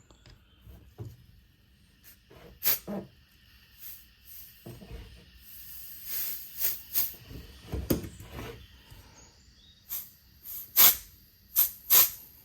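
Several short blasts of compressed air hissing from an air blow gun pressed into a brake caliper's fluid port to force the piston out with air pressure.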